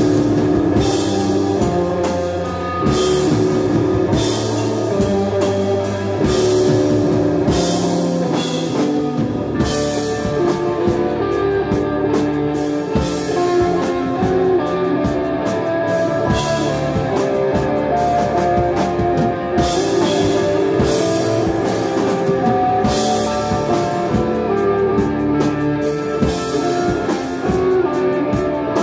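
A live instrumental desert rock band playing: an electric guitar holds a slow melody over bass guitar and drum kit, with repeated cymbal crashes.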